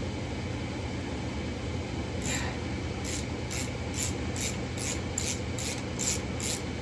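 Rhythmic rasping strokes, about two to three a second, starting about two seconds in, over a steady low hum.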